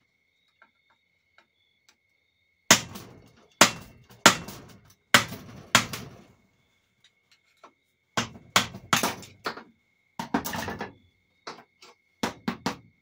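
Hammer blows knocking the rear seal out of a 4L60E automatic transmission's aluminum housing, struck on the seal's metal case. About fifteen sharp strikes come in three bursts, starting about three seconds in, with short pauses between.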